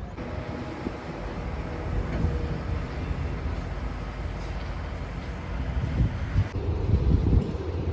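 Low, steady vehicle rumble. The sound changes abruptly about six and a half seconds in and becomes a louder, deeper rumble.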